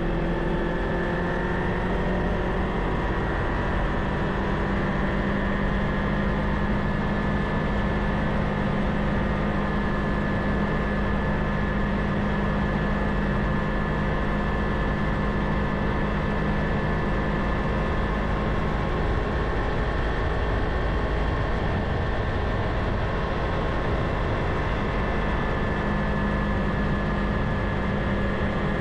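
Kawasaki Ninja 500 parallel-twin engine running steadily under way, with a constant rush of wind and road noise. Its engine note drops away about two-thirds of the way through and picks up again near the end.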